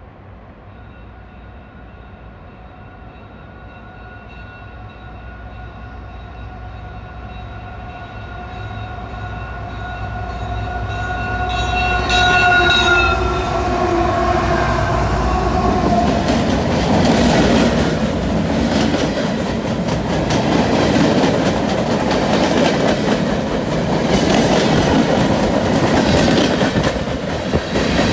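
CN freight train with diesel locomotives approaching and passing close by. A long, steady chord, plausibly the locomotive horn, grows louder and drops in pitch as the engines go past about 12 seconds in. Then the freight cars' wheels keep up a loud, steady rumble and clickety-clack over the rails.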